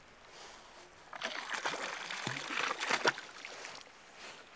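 Shallow seawater splashing and sloshing for about two seconds, starting about a second in, with a few sharp clicks.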